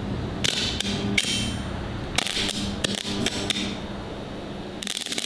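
Arc (stick) welder striking and running an arc on a steel pipe-to-base-plate joint: three short spells of sputtering crackle that keep stopping, over the welder's steady low hum. The arc is not very strong at this current setting, so the welder needs turning up.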